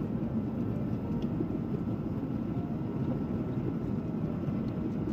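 Steady low rumble of a Boeing 737's cabin in cruise flight: jet engine and airflow noise heard inside the cabin beside the wing-mounted engine, with a few faint steady tones above the rumble.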